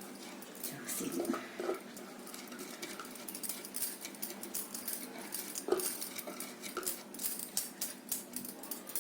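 Quiet, irregular clinks and scrapes of a spoon against a mixing bowl as chopped vegetables are stirred into dry semolina and flattened rice, the clicks coming more often in the second half.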